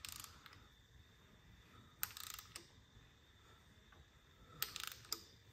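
Three short bursts of rapid mechanical clicking, each under a second long and about two seconds apart.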